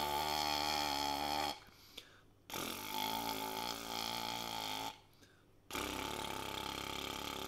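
Low lip buzzing through a brass mouthpiece fitted with a half flugelhorn lead pipe: three long, steady low notes separated by short breaths, a farting-like buzz. It is a gentle warm-up played with very little air pressure.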